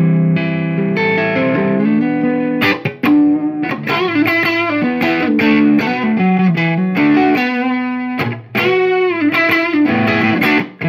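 Electric guitar on its neck single-coil pickup played through a hand-built Clara Amplification Honey Badger 18-watt amp head and 2x12 cabinet, with a Joyo tube-screamer-clone overdrive pedal on and the guitar's volume rolled back, giving a lightly overdriven tone. A phrase of chords and notes, with two short breaks, a bit under three seconds in and around eight seconds in.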